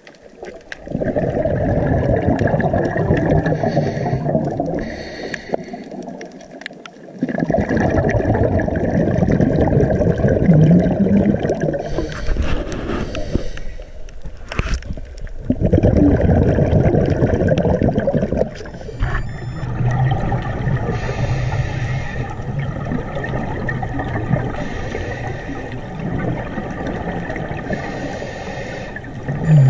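Scuba diver's exhaled bubbles, heard through an underwater camera housing: long bubbling, gurgling bursts of several seconds each, separated by short quieter pauses for the in-breaths.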